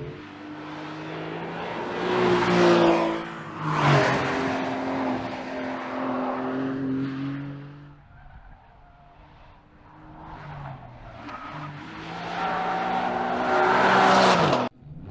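Exhaust of a 2025 Porsche 911 Carrera GTS's 3.6-liter hybrid flat-six, its note rising and falling with engine speed. It is loud twice a few seconds in, drops away in the middle, then builds to its loudest near the end and cuts off abruptly.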